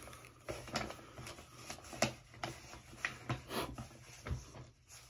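Paper mailing envelope being handled and opened: an irregular run of short, crisp paper rustles and crackles.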